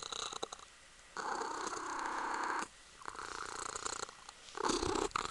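Ragdoll kitten purring right up close, starting about a second in and going in long stretches broken by short pauses.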